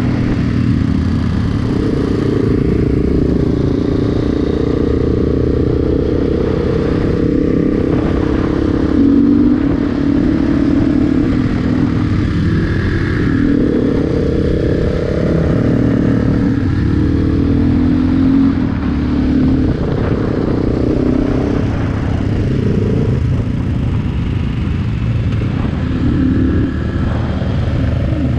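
A motorcycle engine running at a steady road speed, heard from the rider's own bike with wind noise on the microphone. The engine note rises and falls a few times with the throttle.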